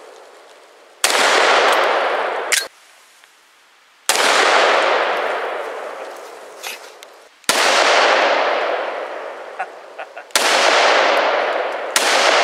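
Single pistol shots from a heavy semi-automatic handgun, about five spaced two to three seconds apart. Each crack is followed by a long echo that rolls back off the wooded hillside and fades. The last shot is from a Desert Eagle.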